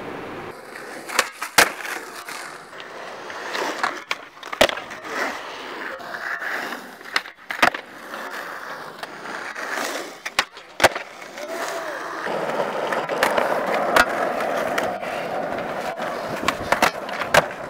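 Skateboard wheels rolling on concrete, broken by sharp clacks of the board popping and landing about ten times. A steadier, longer roll comes in the last third.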